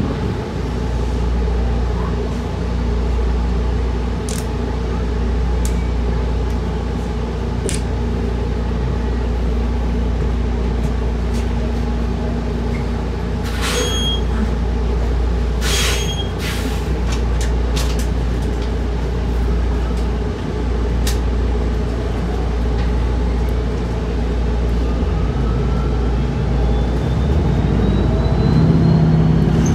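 Inside a New Flyer XDE40 diesel-electric hybrid bus under way: a steady low drivetrain and road rumble, with scattered clicks and rattles about halfway through, and a rising whine building over the last few seconds.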